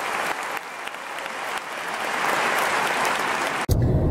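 Large concert audience applauding the symphony orchestra at the end of the performance, a dense steady clapping. Near the end it cuts off abruptly to a low rumble.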